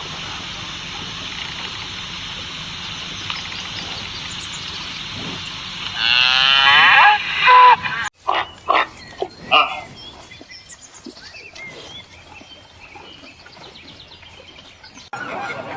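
A cow mooing once, loud and about two seconds long, about six seconds in, over a steady background hiss. After a cut, a few short loud animal calls follow in quick succession, then quieter scattered noises.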